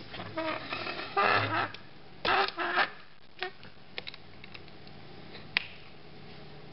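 Black plastic camlock coupling on a green suction hose squeaking as it is pushed and twisted onto the container's outlet port fitting, two squeaky bursts in the first three seconds. A few light clicks follow, with a sharper click about five and a half seconds in as the cam arms are closed.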